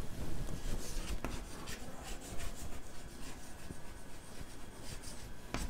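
Chalk scratching on a chalkboard as a word is written, a run of short scratchy strokes.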